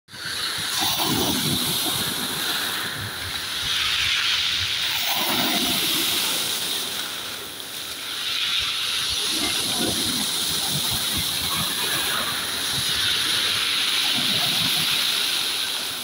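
Small sea waves breaking and washing up a pebble beach around a rock, a surge about every four to five seconds over a steady hiss of foam.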